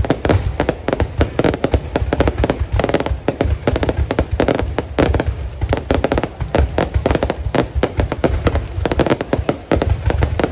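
Aerial fireworks display: a dense, unbroken barrage of bursts and crackling, several reports a second, over a deep rumble of booms.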